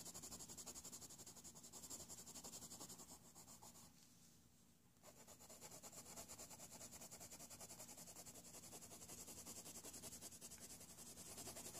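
Faint scratching of a Faber-Castell Polychromo coloured pencil shaded back and forth on a colouring-book page, in quick even strokes about five a second, with a brief pause about four seconds in.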